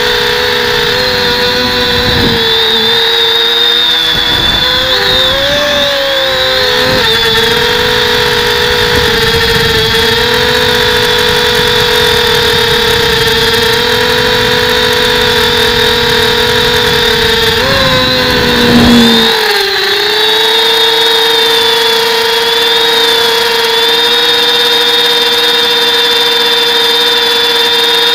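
Electric motors and propellers of a camera-carrying multirotor drone, heard through its onboard camera: a steady high whine while hovering. The pitch wavers briefly as the throttle shifts, once about 5 s in and again about 18 s in, when a low rumbling noise underneath also stops.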